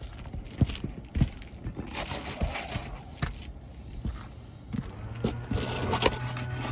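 Scattered knocks and scrapes of work on an asphalt shingle roof. From about five seconds in, a steady low hum joins them.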